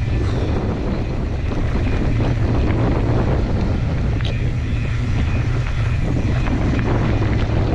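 Wind buffeting the microphone of a camera riding on a moving mountain bike, a steady low rumble with small clicks and rattles from the bike over the ground.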